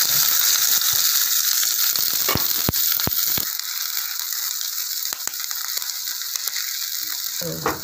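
Chopped onions sizzling in hot oil in a nonstick kadai while a spatula stirs them. The spatula scrapes and clicks against the pan several times, mostly around two to three seconds in.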